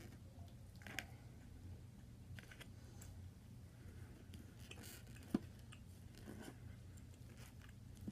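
A metal fork tapping and scraping as it breaks open a baked potato on a plate: scattered soft clicks and scrapes, with the sharpest click about five seconds in, over a low steady hum.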